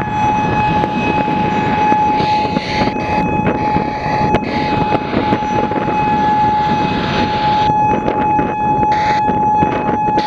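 Federal Signal Modulator 6024 electronic siren sounding a loud, steady single-pitch tone. Wind buffets the microphone heavily underneath it.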